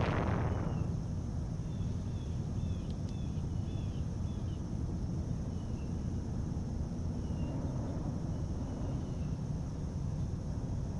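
Outdoor dawn ambience: a few short, faint bird chirps, grouped about two to three seconds in and then spread out, over a steady high insect drone and a constant low rumble. A loud whoosh fades out within the first second.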